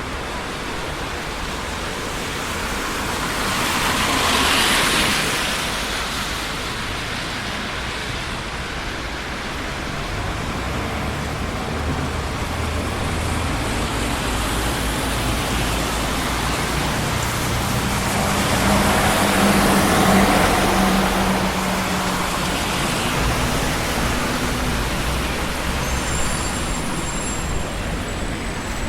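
Steady traffic noise of a busy city street: a continuous roar of tyres and engines. Vehicles swell louder as they pass about four seconds in and again around twenty seconds in, the second pass with a low engine hum of a heavier vehicle. A few faint high thin tones sound near the end.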